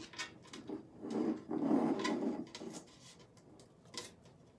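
Stencil sheet rustling and rubbing against the side of a pitcher as it is held up and shifted into position, with light clicks and taps and a louder stretch of rubbing about a second in.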